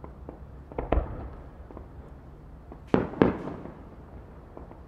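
Aerial firework shells bursting: two bangs about a second in, then two louder bangs close together about three seconds in, each trailing off in an echo, with small crackles between. A much louder bang comes right at the end.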